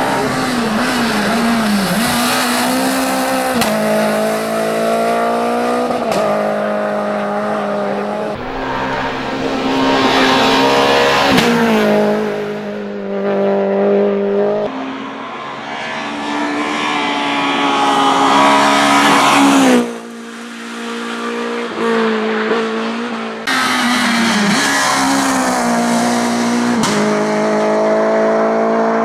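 Renault Clio Williams rally car's 2.0-litre four-cylinder engine at full throttle on a hillclimb, revs climbing and then dropping in steps through gear changes and lifts for the bends. The sound cuts suddenly a couple of times as the view changes.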